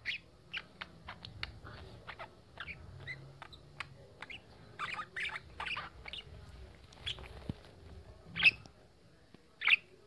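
Budgerigar chattering to its reflection in a mirror: a run of short chirps and clicks, with two louder, sharper calls near the end.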